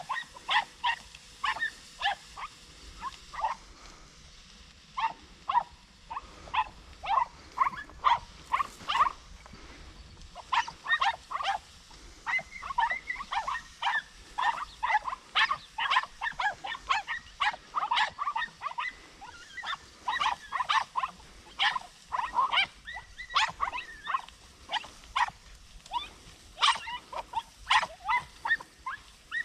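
Podenco hounds yelping: short, high yelps in quick irregular series, almost without pause. It is the cry of hounds working a rabbit in cover.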